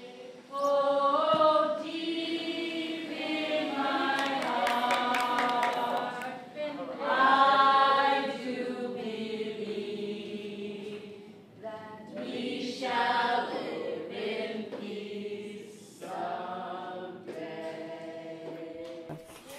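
A group of voices singing together without instruments, in several sustained phrases.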